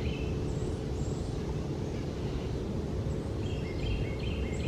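Woodland ambience: steady low background noise, with a bird giving a short series of high chirps near the end.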